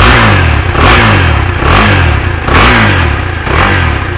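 KTM 390 Adventure's single-cylinder engine being revved through its stock exhaust in quick throttle blips, about five, each rising and falling in pitch a little under a second apart.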